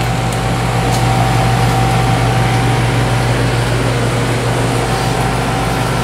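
Outdoor heat pump condensing unit running: steady compressor hum under the rush of the condenser fan. It is a unit reported to be blowing a little warm.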